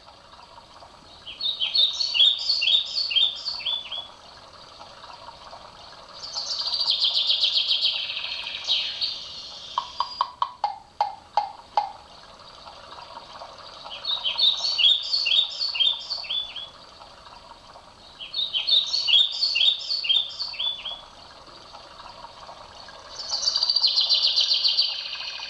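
Birdsong alarm clock playing a recording of bird song: phrases of quick, high twittering notes repeat every few seconds, five times. A slower run of lower notes comes about ten seconds in, over a faint steady background noise.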